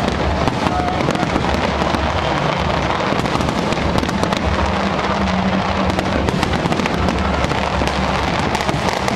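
Dense, continuous fireworks barrage: many rapid crackles and pops running together at a steady loudness with no pause.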